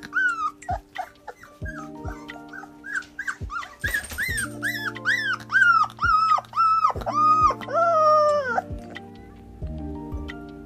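Young black Labrador retriever puppy whining: a run of short high whimpers that rise and fall, densest in the middle and ending on a longer drawn-out whine about eight and a half seconds in, over background music.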